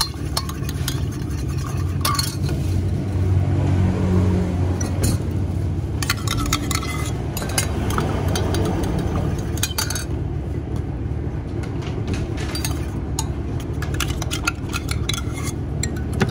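A long metal spoon stirring in a glass measuring jug, clinking against the glass again and again at an uneven pace, over a steady low rumble that swells briefly a few seconds in.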